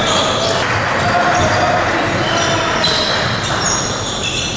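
Basketball game play on a hardwood court: the ball bouncing as it is dribbled, with players' sneakers moving on the floor and short high squeaks.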